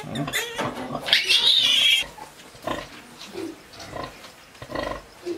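Newborn piglets squealing and grunting. About a second in, one piglet gives a loud, shrill squeal lasting about a second, followed by short, scattered grunts.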